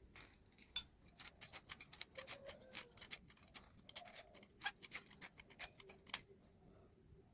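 A quick, irregular run of sharp clicks and snips from hand work, the loudest about a second in and near the end.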